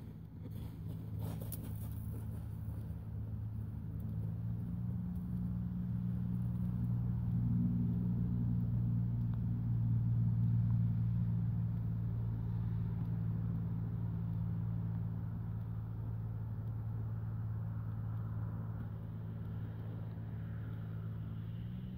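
A steady low engine drone that swells to its loudest about halfway through and then eases off.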